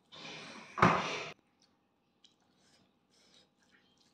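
Mouth sounds of a person eating with her hand. A loud wet, breathy sound lasts about a second as a handful of rice and pork goes into her mouth, sharpest near its end, followed by faint scattered clicks of chewing.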